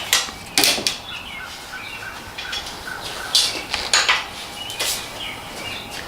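Sharp metal clicks and knocks, about seven in all, as a rusted, stuck part is worked back and forth to free it after being sprayed with silicone.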